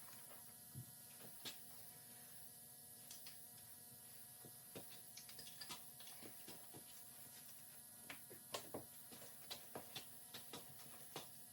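Near silence with a faint steady hum and scattered light clicks and taps, a little busier in the second half: small metal tools and engine parts being handled during an engine teardown.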